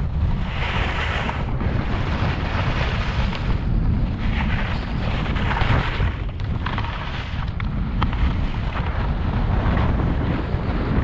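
Wind buffeting the action camera's microphone in a steady low rumble while skiing downhill, with swells of hissing scrape as the skis cut across firm, wind-packed snow through each turn.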